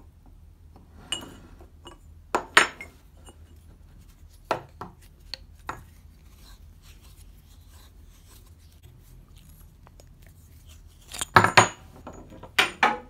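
Hollow metal tubes clinking and knocking against each other and the wooden workbench as they are handled and a pipe cutter is set on one. A few scattered clinks come first, then a louder run of several knocks near the end.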